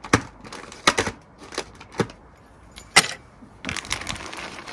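A bunch of keys jangling and clinking as it is set down on a wooden table: a few sharp clinks, the loudest about three seconds in, followed by a brief rustle.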